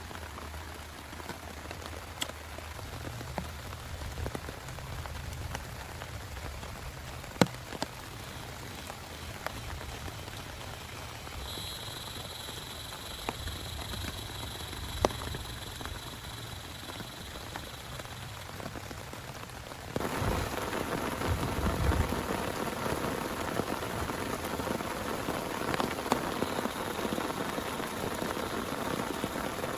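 Steady rain with scattered sharper drop ticks. A thin, steady high tone sounds faintly for several seconds in the middle, and about two-thirds of the way through the rain abruptly becomes louder and fuller.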